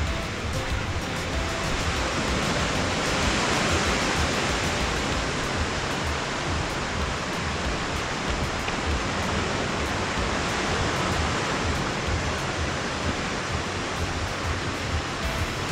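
Steady rushing of water, swelling slightly about three seconds in.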